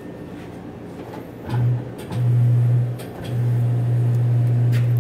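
Rubber ATV tire bead groaning against the rim and mount bar as it is worked onto the rim on a manual tire changer. It is a low, steady hum at one pitch, heard three times, the last stretch the longest.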